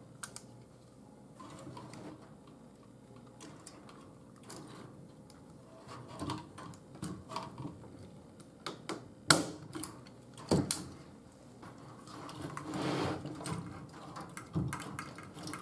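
A staple gun fired twice into a wooden shelf frame, two sharp snaps a little over a second apart near the middle. Between them come small clicks and rattles of chicken wire being handled and pressed flat against the wood.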